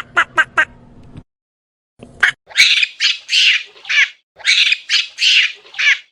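A bird calling loudly: a few short, quick calls at the start, then after a pause a run of about eight harsh squawks in two groups of four, several ending with a falling tail.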